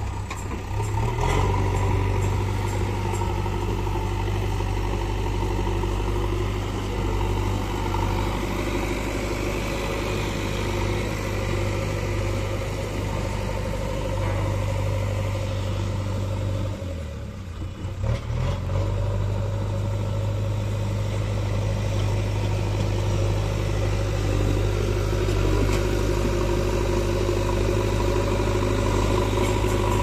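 JCB 3DX backhoe loader's diesel engine running steadily as the machine works its front loader bucket. The engine note dips briefly past the halfway point, then picks back up.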